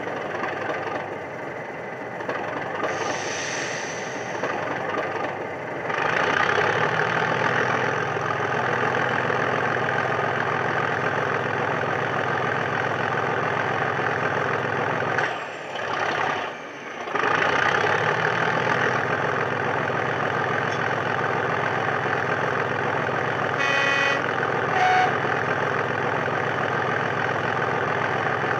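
DCC sound decoder in a model Class 37 diesel locomotive, playing through an EM2 speaker: the diesel engine sound running steadily, growing louder and heavier about six seconds in, dropping away briefly twice around the middle, with two short horn toots near the end.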